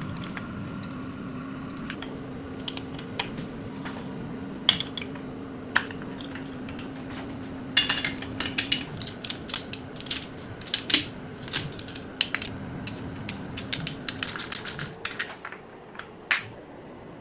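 Small metal engine parts and hand tools clinking and tapping against each other, in scattered sharp knocks with a quick run of rapid clicks near the end, over a steady low hum.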